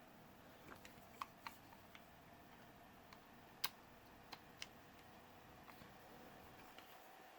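Near silence with a few faint, scattered clicks, the plainest about halfway through, from small objects being handled.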